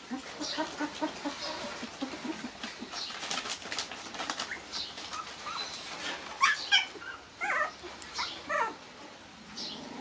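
Young puppies whimpering and yelping: a string of short low whines at first, two sharp high yelps about six and a half seconds in, then several falling whines, with scuffling and rustling in between.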